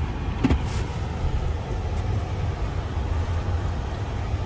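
Steady low rumble of a car, with a single click about half a second in.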